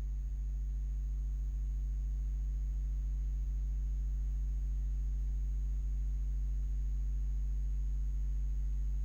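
Steady low electrical hum: a few low tones held without change throughout, with a faint thin high tone above them.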